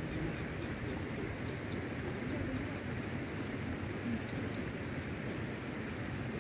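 Outdoor ambience at the waterside: a steady low rumbling background with a constant high hiss and a few faint short chirps.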